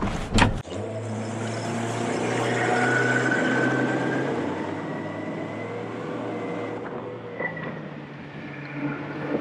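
Twin Honda 90 four-stroke outboard motors running under throttle as the boat runs at speed, a steady engine drone over the rush of water and wind. The sound swells for the first few seconds, then slowly eases.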